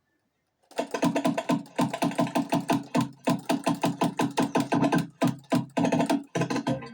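DJ scratching a music sample on a Pioneer DDJ-SB3 controller: the sample is chopped into rapid, stuttering stabs and rubs. It starts just under a second in.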